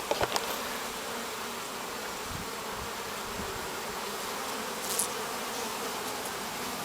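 Honeybees buzzing steadily around an opened hive during a frame inspection, with a few light clicks near the start.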